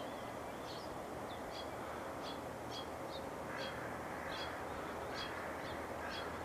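A bird calling with short, high chirps repeated about every half-second, over a faint steady low hum in the background.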